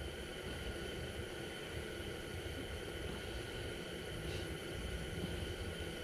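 Faint steady background noise: a low rumble and hiss with a few faint steady tones above it, and no distinct sound standing out.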